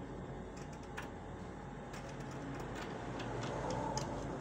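Scissors cutting through printed fabric on a table: a scattered series of light clicks and snips of the blades.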